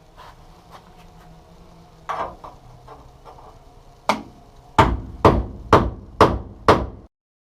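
Hammer blows on rusted sheet metal. After a few light taps and two single harder hits, five hard blows land about two a second.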